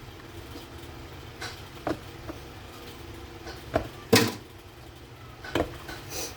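Short household knocks and clatters of things being handled, about seven of them spread unevenly, the loudest a double knock about four seconds in.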